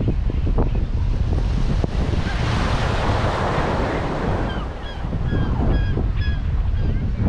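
Surf washing onto a beach, one wave's wash swelling and fading about two to four seconds in, with wind rumbling on the microphone. From about halfway, a bird calls in a quick run of short, repeated notes.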